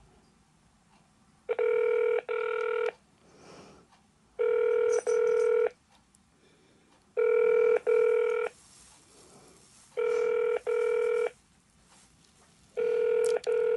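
Ringing tone of an outgoing phone call on speakerphone: British double ring, 'brr-brr', heard five times about three seconds apart while the call waits to be answered.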